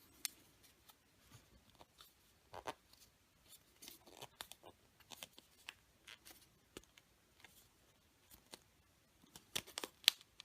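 Faint scattered crinkles and clicks of a surprise egg's plastic toy capsule and wrapper being handled and opened, with a busier flurry near the end.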